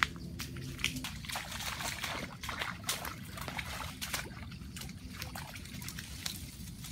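Shallow stream water splashing and trickling as a person wades and works with their hands in it, with many small, irregular splashes.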